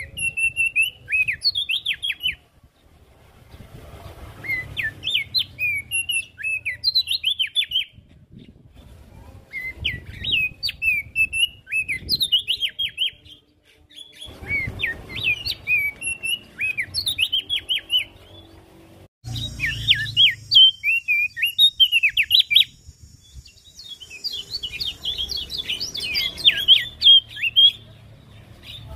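Opior jambul (Javan grey-throated white-eye) singing: a string of quick, rising and falling chirping notes in phrases a few seconds long, separated by short pauses.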